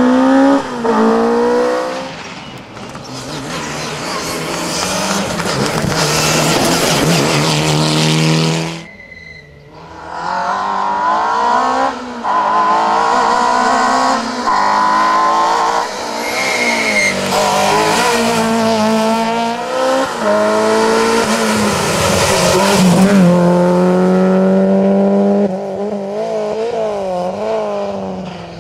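Rally car engines at full throttle, revving up and falling back again and again through gear changes, with tyre squeal. The sound drops away briefly about nine seconds in, then the engine revving comes back loud.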